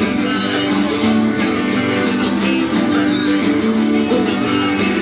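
Live band playing an instrumental stretch of a country-rock song, led by strummed acoustic guitars at a steady beat.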